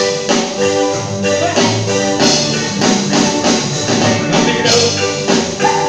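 Live band music played loud in a club, with vocals over a drum kit keeping a steady beat.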